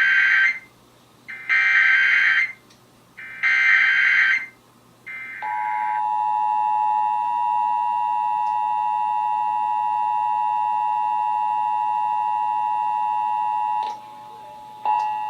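Emergency Alert System test broadcast: three one-second bursts of SAME header data tones, then the EAS two-tone attention signal (853 and 960 Hz together), a steady tone lasting about eight seconds. It cuts off, and after a brief gap the same attention tone starts again near the end.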